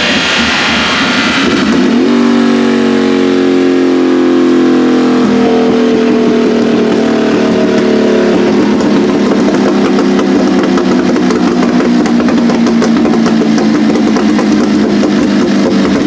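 High-horsepower car engine running hard at high revs. Its pitch dips a little a couple of seconds in, then holds steady and loud.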